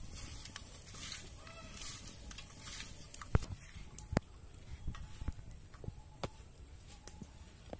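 Hands working small fish with salt and turmeric in a bowl, giving wet rustling noises, then a few sharp clicks as food is handled in a steel plate. A hen clucks faintly in the background.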